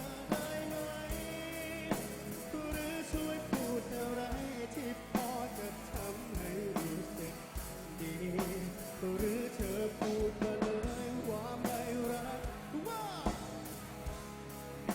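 Rock band playing live, with a drum-kit beat under a sung or lead melody line.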